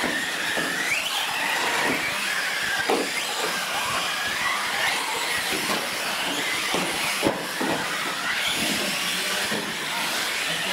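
Several R/C trucks racing, their motors whining and rising and falling in pitch with the throttle over a steady hiss, with a few sharp knocks from the trucks hitting bumps or landing.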